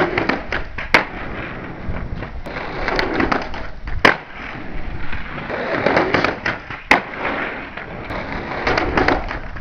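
Skateboard wheels rolling on a concrete driveway, with sharp clacks of the board popping and landing: three loud cracks about a second, four seconds and seven seconds in, and lighter clicks between.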